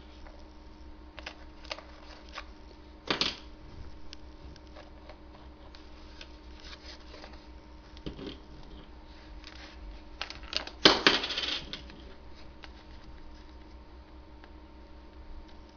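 A copper penny clinking and clattering against a hard surface as it is handled and set down, in short scattered clicks with a sharp clatter about three seconds in and a longer, louder one about eleven seconds in. A faint steady hum runs underneath.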